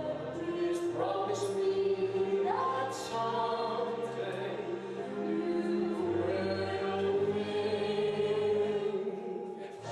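Small vocal ensemble singing in harmony over sustained low notes, with voices sliding up into new notes about a second in and again a couple of seconds later.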